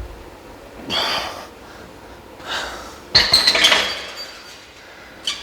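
Heavy breathing from the effort of a set of barbell front squats: several hard exhales a second or more apart, with a louder sharp clatter about three seconds in.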